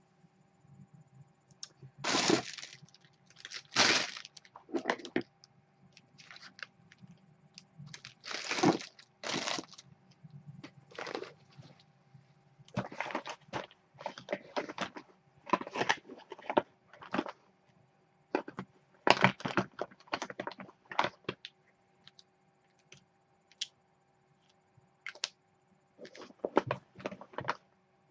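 Handling noise: irregular clicks, taps and rustles as small makeup items, including a lipstick tube, are picked up and handled close to the microphone.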